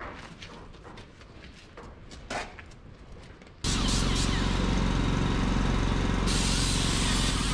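Scuffs and clanks of a tractor tire being handled. Then, after a sudden cut about three and a half seconds in, a loud steady hiss of compressed air from an air-hose nozzle over the hum of a running machine. The hiss grows brighter near the end.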